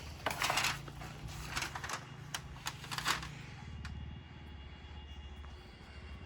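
Wood lathe running with a steady low hum, with short bursts of scraping and sharp clicks during the first three seconds, then only the hum.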